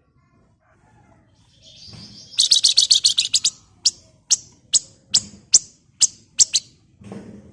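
Wergan Jawa (Javan fulvetta) calling: a quick chattering burst of high notes, then a run of sharp, evenly spaced chirps, about two or three a second, that stop a little after six seconds in.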